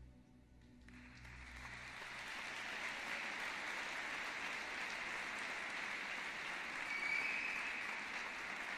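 The last low notes of the program music die away as audience applause rises over about two seconds and then holds steady.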